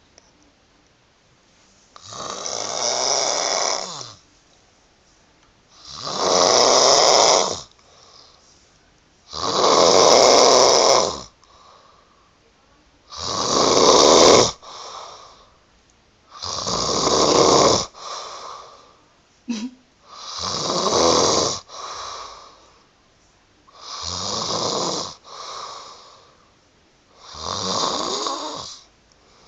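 A woman snoring in her sleep through loose lips: eight loud snores, one about every three and a half to four seconds. Several are followed by a shorter, softer one.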